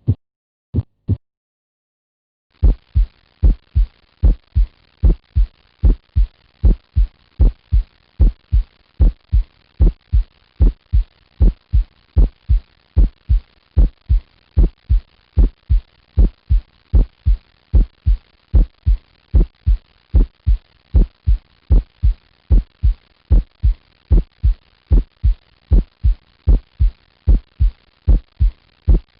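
Recorded heart sounds on auscultation: a steady, evenly repeating rhythm of short low thumps, with a faint hiss between the beats. A few beats, a short pause, then a new recording starts about two and a half seconds in.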